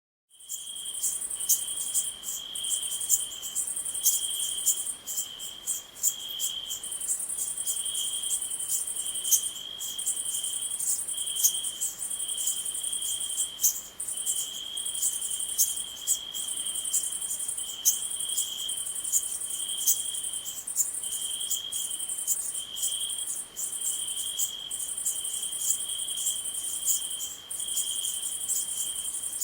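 Night ambience of crickets and other insects: a steady high-pitched trill with short breaks, over a lower chirping that pulses on and off, with scattered sharp ticks. It cuts in suddenly from silence at the start.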